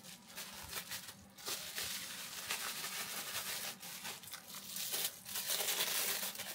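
Lens packaging crinkling and rustling as it is unwrapped by hand, in uneven handfuls with a few brief pauses.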